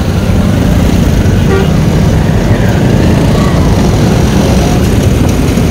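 Motorcycle ride through city traffic: the bike's engine running with a steady rumble of road and traffic noise.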